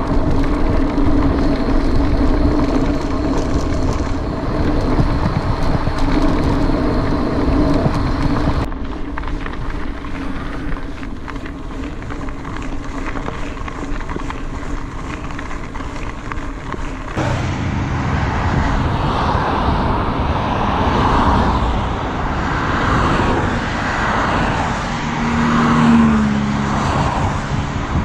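Mountain bike riding noise: knobby tyres rolling over a gravel forest track, with wind and rattle on the camera, and a steady hum in the first part. In the last third, road traffic, with a car passing and its pitch falling near the end.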